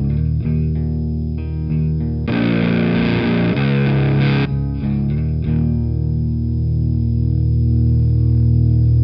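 Fender Jazzmaster in drop B playing a heavy distorted riff through Sunn Model T–style preamp pedals, switched between the Kuro Custom Audio Exegol and the EarthQuaker Devices Acapulco Gold. The Acapulco Gold stretch, from about two seconds in, sounds brighter and more saturated. About five and a half seconds in, a low chord is struck and left ringing.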